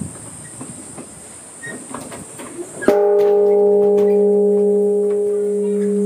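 Large bronze temple bell of the castle bell tower, struck once with a swung wooden beam about three seconds in, then ringing on with a long, steady low hum and higher overtones. It is the time-keeper's bell tolling the hour.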